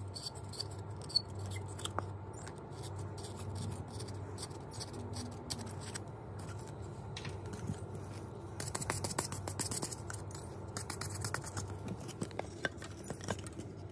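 Close handling noise of a fabric speaker cover being stretched and pressed over a foam helmet ear-pad piece: scattered small clicks, rubbing and scratching. It is busiest about two-thirds of the way through, over a steady low hum.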